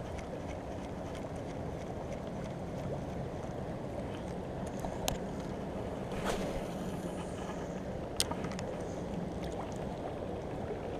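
Steady rush of fast-flowing floodwater and wind around a small boat, with a low hum beneath. About six seconds in, a fishing rod is cast with a swish and a brief hiss of line leaving the reel, and there is a sharp click a couple of seconds later.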